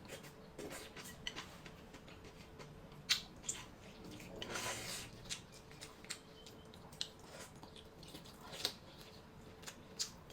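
Close-up eating sounds: scattered sharp clicks of utensils against dishes and wet chewing, with a longer noisy stretch of about a second near the middle.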